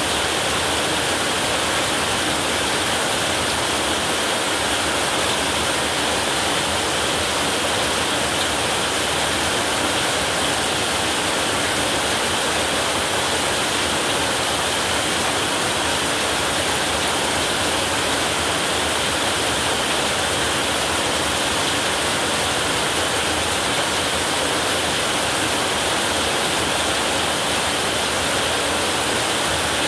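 Heavy rain falling steadily on a roof: an even, unbroken hiss with no thunder.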